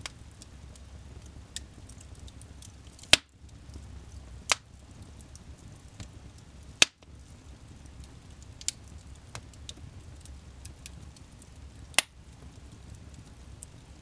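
Wood logs burning in a fireplace: a low steady rumble of flame with scattered small crackles and four sharp pops, the loudest about three and seven seconds in.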